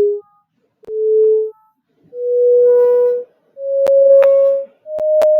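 Software synthesizer playing a pure sine-wave tone, one note at a time, stepping higher up the keyboard with each note: four notes, each about half a second to a second long, the third held longest. Sharp clicks sound between some of the notes.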